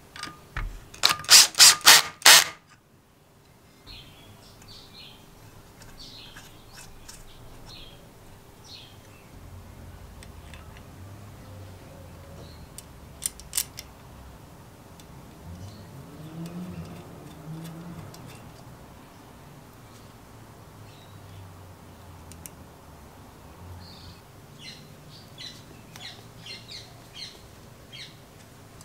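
A cordless drill with a socket runs in about five short, loud bursts, driving in a small bolt on a restored Robin EC17 engine crankcase. Faint bird chirps and a few small tool clicks follow.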